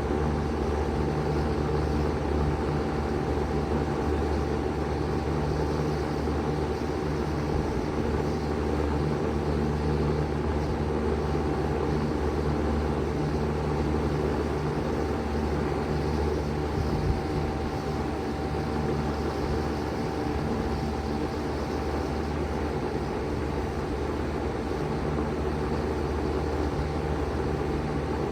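2023 Bard 3-ton wall-hung heat pump running steadily in cooling mode: an even low hum with a thin steady tone above it, holding the same level throughout.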